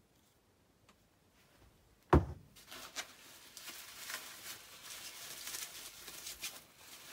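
A single sharp thump about two seconds in, then plastic bubble wrap crinkling and rustling with many small crackles as a wrapped canister is pulled out and unwrapped.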